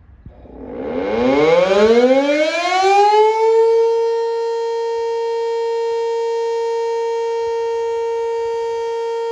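Electric motor siren winding up from a low pitch to a high one over about three seconds, then holding a steady wail. It is sounding the 6 p.m. time signal.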